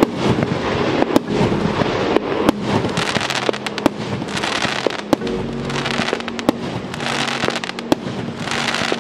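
150-shot consumer firework cake of 30 mm calibre firing in a rapid series: sharp reports of shells launching and bursting, one or two a second, over a continuous hiss.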